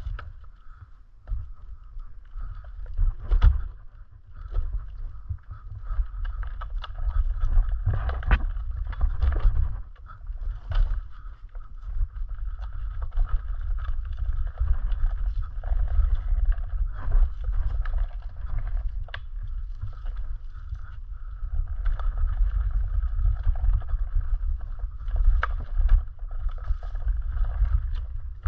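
Ride noise from a Onewheel single-wheel electric board rolling along a dirt trail: a steady low rumble of wind and vibration on the camera microphone, with the tyre running over dirt and a few sharp knocks from bumps.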